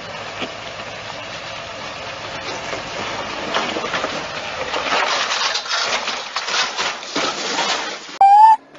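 A 4x4 truck's engine runs, then gives way to crunching, scraping and crackling as the truck rolls over down a brushy slope. Near the end comes a short loud shout.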